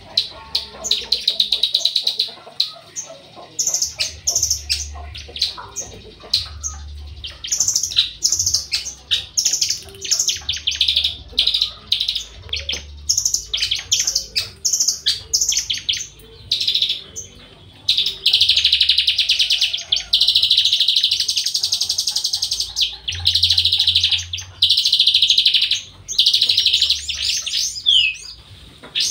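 Javan bush lark (branjangan) singing continuously: a fast stream of high chirps and short trills, running into long, rapid trilled phrases in the second half.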